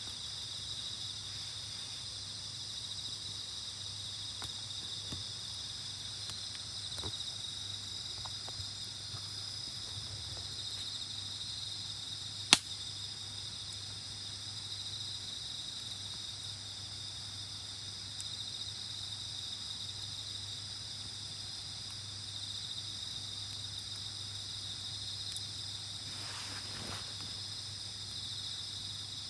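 Crickets and other insects chirring in a steady, unbroken night chorus. One sharp snap stands out about a third of the way through.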